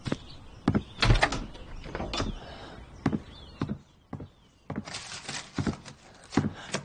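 Hurried footsteps and a door being opened, with a series of sharp wooden knocks and a brief sliding, rustling scrape about five seconds in.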